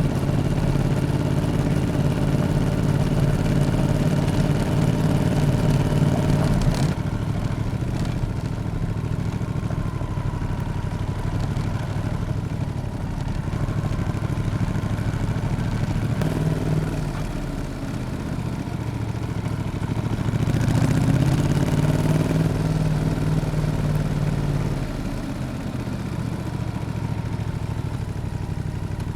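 Yamaha XSR700's parallel-twin engine with an SC-Project exhaust running, louder for the first several seconds and again about two-thirds of the way through, easing off in between.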